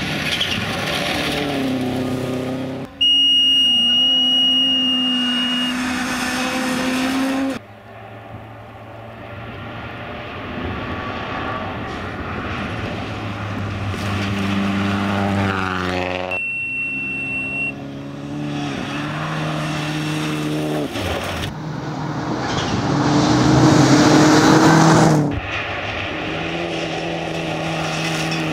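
Rally cars driven flat out on a gravel stage, heard in a string of short shots: engines revving up and down through the gears, loudest as one car comes close near the end. A steady high whine runs through two of the shots.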